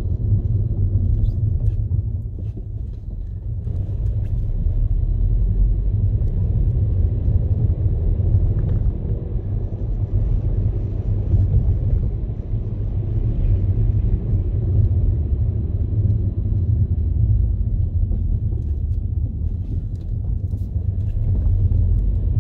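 Steady low rumble of a moving car heard from inside the cabin: engine and tyre noise on the road, easing briefly about two to three seconds in.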